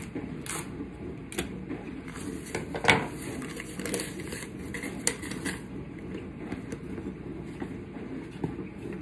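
Scissors cutting open cardboard cornbread-mix boxes and the boxes and their paper pouches being handled: rustling, snips and small clicks, with a sharp knock about three seconds in.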